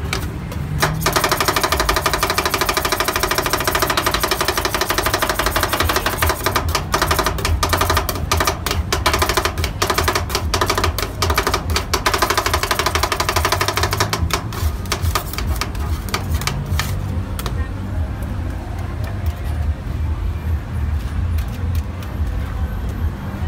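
Two metal spatulas chopping and tapping rapidly on a cold metal ice-cream pan, breaking fruit into the rolled-ice-cream base. The clicks are densest through the middle and thin out after about seventeen seconds.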